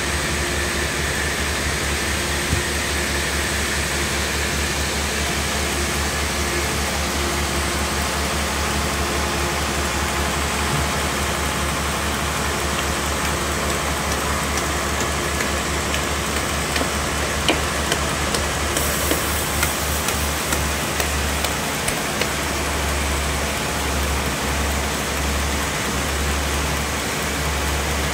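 Large sawmill band saw running, a steady machine drone with a low pulsing hum beneath it. A scatter of sharp ticks comes about two thirds of the way through.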